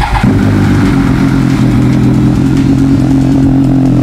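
Triumph Daytona 675's three-cylinder engine with a Yoshimura slip-on exhaust catching at the very start and settling into a steady idle, on its first start after sitting unused for a month.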